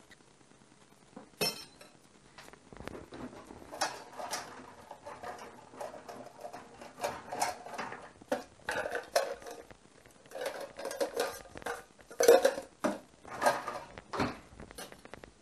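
Kitchen utensils clinking and clattering against bowls and dishes in irregular knocks, starting a little over a second in.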